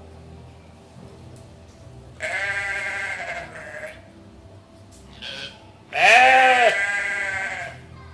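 Goats bleating: three calls, a long one about two seconds in, a short one around five seconds, and the loudest, a long wavering bleat about six seconds in.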